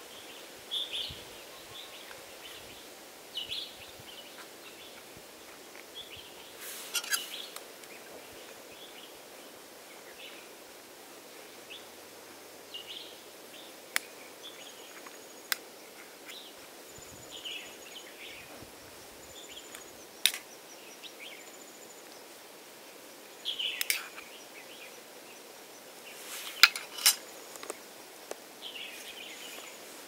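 Metal spoon clinking sharply against a metal camping cook pot several times while mushrooms are stirred and handled, with birds chirping on and off in the background.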